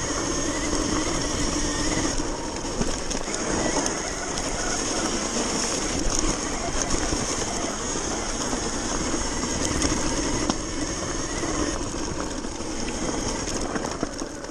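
Sur-Ron electric dirt bike ridden over a snowy, muddy trail: a steady rush of wind and tyre noise with a high whine from the electric drive. There are a few knocks as it goes over bumps.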